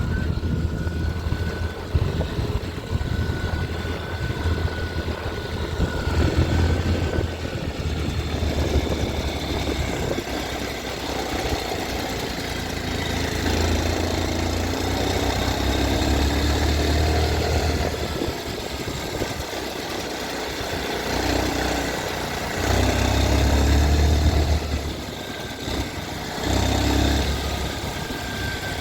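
TVS Sport 110 motorcycle's small single-cylinder four-stroke engine running near idle, its speed rising and falling a few times, with a strange mechanical noise from the engine that the owner flags as a problem.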